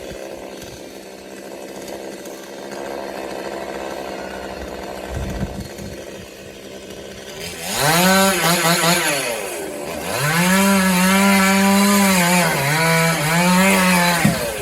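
Chainsaw cutting coconut palm trunk: quiet at first, then revved to full speed about halfway in and run hard, its pitch sagging briefly twice under load, before the throttle is released and it drops off sharply near the end.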